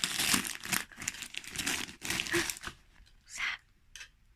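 Wrapping paper crinkling and tearing as a present is unwrapped, busiest in the first two and a half seconds, then a few short rustles.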